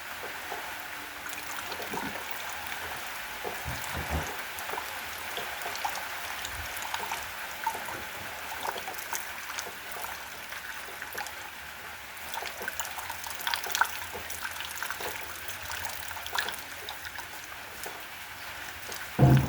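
Rain falling: a steady hiss of water dotted with many separate drop hits. A single loud, dull thump near the end.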